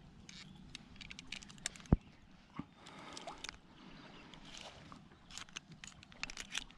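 Light water sloshing with small clicks and taps from handling a freshly caught small fish at the water's edge, and one sharp knock about two seconds in.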